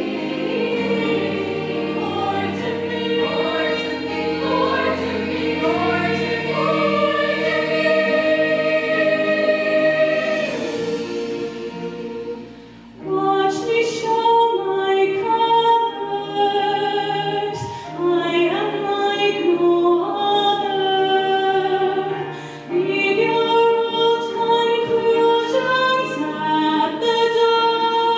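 A school choir sings a sustained passage. About halfway through it fades out, and a female soloist starts singing into a microphone.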